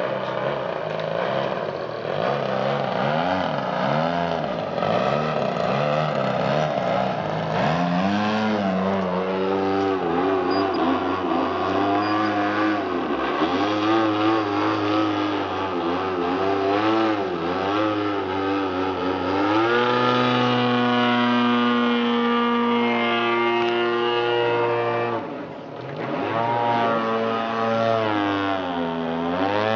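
PTE 36cc two-stroke gasoline engine on a 70-inch Slick RC aerobatic plane, with a 19x8 propeller, in flight. Its pitch rises and falls with throttle changes and passes through the maneuvers, then holds at a high steady pitch about two-thirds through. Near the end it drops sharply, climbs back, and dips once more.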